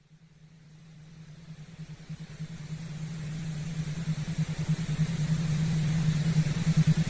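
A low, fast-fluttering hum like an idling engine, fading in from silence and growing steadily louder, with a hiss rising beneath it.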